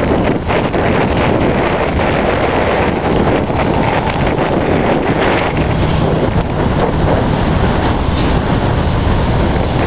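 Strong wind buffeting the microphone: a loud, steady rush with an uneven low rumble.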